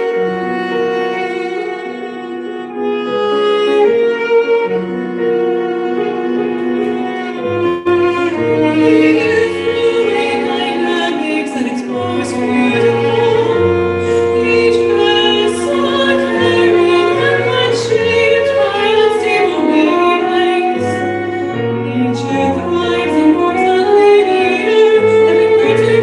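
Live chamber music: a cello bowing sustained notes over keyboard chords, with a soprano singing in an operatic style that comes in about eight seconds in.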